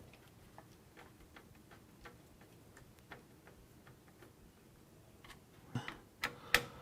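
Screwdriver turning a small screw into a motherboard standoff: faint, light clicks at an uneven pace, with a few louder clicks near the end.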